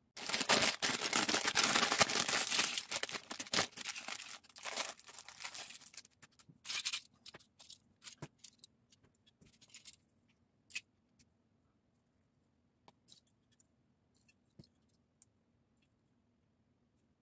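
A plastic bag of Lego pieces is torn open and crinkled, with the pieces spilling out, for about the first six seconds. Then come scattered light clicks of the plastic bricks being picked through and sorted.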